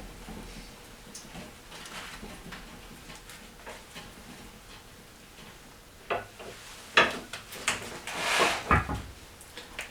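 Metal workshop parts being handled: a few sharp clanks from about six seconds in, a brief scrape, then a heavy low thump near the end.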